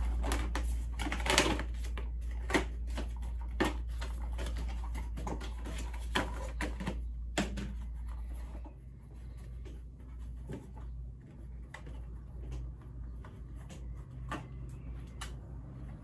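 New folded Maxxis mountain-bike tyres being unfolded and handled: a run of clicks, taps and rustles from the rubber and folding bead, over a steady low hum that fades out about halfway through.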